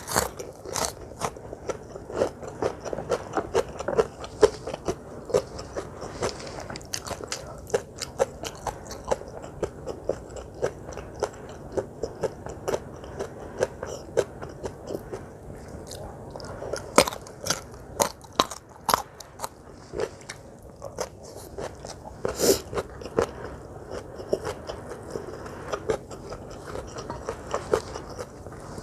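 Close-miked chewing and crunching of crisp food: a steady run of sharp crunches and mouth sounds, with a few louder bites about halfway through and again a little later.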